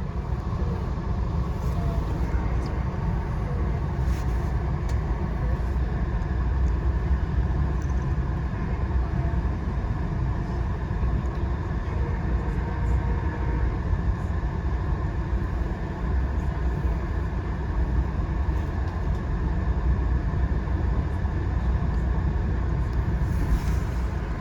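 Passenger train running along the line, a steady low rumble heard from aboard, with a few faint ticks.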